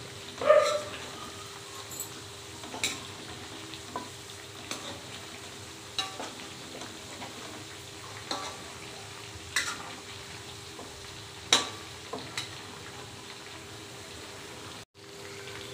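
Chicken pieces deep-frying a second time until crisp in hot oil in a metal kadhai: a steady sizzle, with a metal slotted spoon knocking and scraping against the pan every few seconds as the pieces are stirred. One brief louder sound comes about half a second in.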